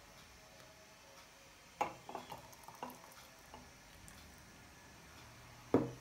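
A few light knocks and clinks of kitchen things being handled, glass and jar set down on a wooden board: one sharp knock about two seconds in, a quick run of smaller clinks after it, and another knock near the end.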